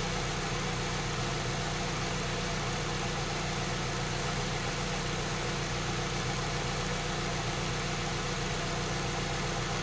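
A 2008 Saab 9-3 2.0T's turbocharged four-cylinder engine idling steadily.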